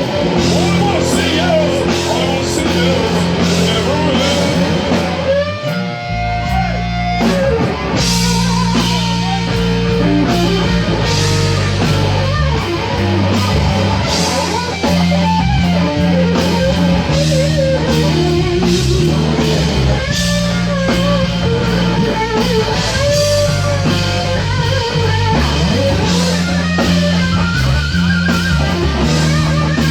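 A band playing: electric guitar lead with bending notes over bass and drum kit. The bass and drums drop out for about two seconds, six seconds in, then come back.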